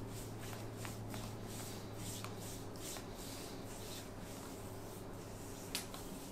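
Hands rubbing and kneading oiled skin during deep-tissue massage of the lower back: faint soft swishes repeating about twice a second over a low steady hum, with one sharp click near the end.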